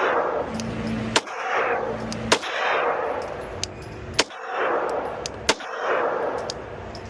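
Four single shots from a Glock 19 Gen 5 9mm pistol firing Blazer 115-grain rounds, spaced about one to two seconds apart, each trailing off in echo.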